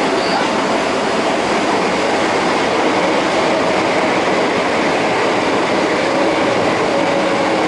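Osaka Metro 22 series subway train running between stations, heard from inside the car: a steady rumble of wheels on rail, with a faint even whine from the Hitachi GTO-VVVF traction equipment.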